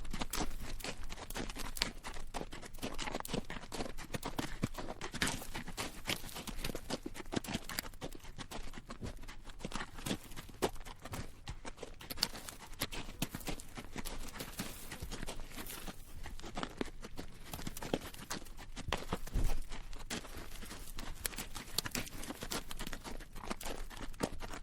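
Horse hooves clip-clopping on rocky dirt at a walk, a continuous run of knocks with the rattle of the bridle and creak of the saddle; one heavier thud about three-quarters of the way through.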